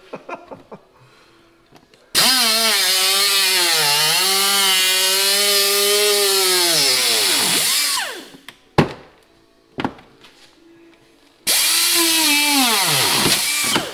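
Pneumatic cutting tool cutting through a plastic inner fender liner: a high whine over a hiss of air, its pitch sagging and wavering as it bites, for about six seconds, then a second shorter run near the end. Each run winds down with a falling pitch as the trigger is let go.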